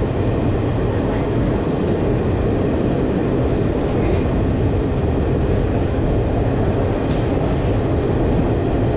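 Indian Railways express passenger train running along the track: a loud, steady rumble of wheels on rail, with no distinct rhythm of joint clicks.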